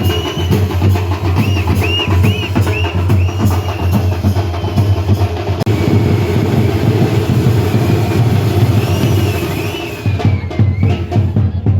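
Loud, fast drumming with many dense strokes, while shrill whistles rise and fall over it.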